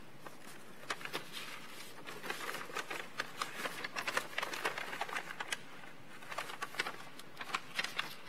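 Sheets of paper being handled and folded close to a microphone: irregular crisp crinkling and rustling, starting about a second in.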